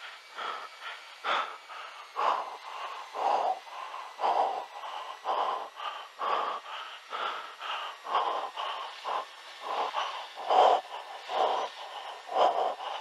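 A person breathing hard and fast close to the microphone, about two breaths in and out a second, rhythmic and ragged, as under stress while trying to bring the plane down.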